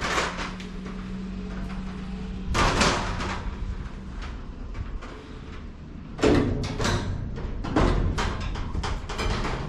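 Sheet-metal parts of a steel storage shed rattling and knocking, with loud knocks about two and a half seconds in, just past six seconds and near eight seconds, and a low steady hum for the first two seconds or so.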